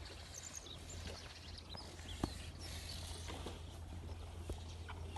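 Cattle-farm ambience: a steady low hum with scattered short knocks, the loudest about two seconds in, and faint bird chirps.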